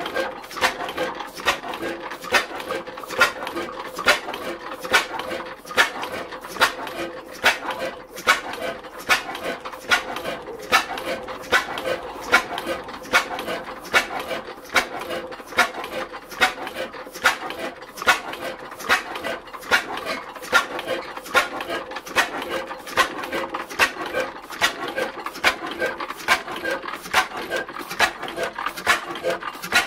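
1912 Hornsby 6 hp Type L hot-bulb oil engine running steadily, its cam-driven valve gear clicking and knocking in an even rhythm with a stronger beat about once a second.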